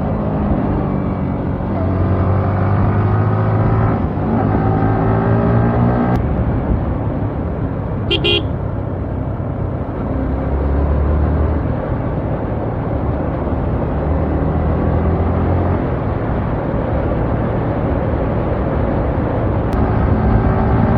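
Yamaha R15's single-cylinder engine running under way, its pitch climbing again and again as it pulls through the gears, over wind and road noise. A short horn beep sounds about eight seconds in.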